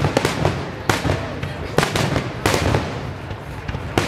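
Fireworks finale: aerial shells bursting with a loud bang about every second, smaller pops and crackle between them, over a continuous low rumble.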